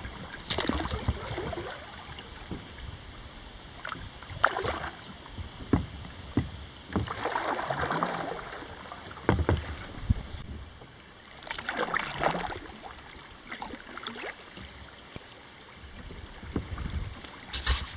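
Kayak paddle strokes: the blades dip and splash in the water every few seconds, with dripping and a few sharp knocks between strokes.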